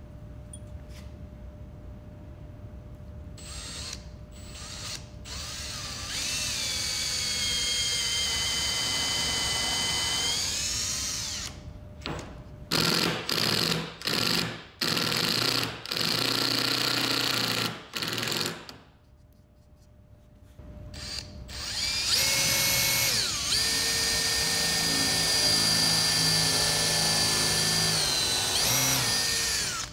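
Makita 18V cordless drill boring into a wooden workbench top: the motor whine spins up and holds steady for several seconds. This is followed by a string of short trigger bursts, a brief pause, and another long steady run near the end.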